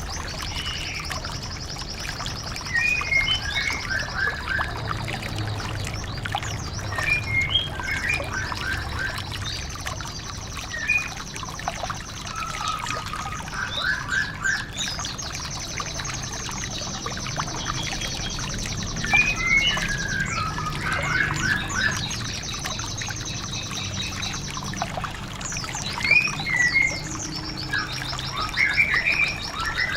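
Recorded songbird calls used to train white-eyes: long, very fast high trills lasting a few seconds each, repeating, with short chirps between them, over a steady trickle of water.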